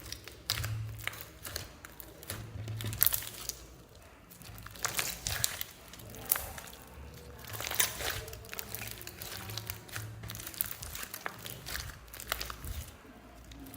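Slime being squeezed and worked by hand, giving irregular crackling clicks and crinkly pops.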